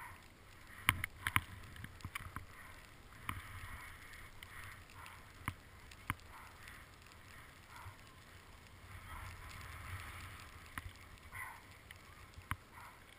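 Skis sliding and scraping over packed snow, with wind on the microphone, broken by a few sharp clicks, a cluster of them about a second in.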